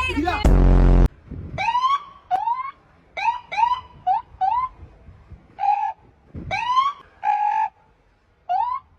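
Short siren whoops: about a dozen quick chirps, most sliding up in pitch and levelling off, a couple held flat, spaced irregularly. A loud blare comes first, about half a second in.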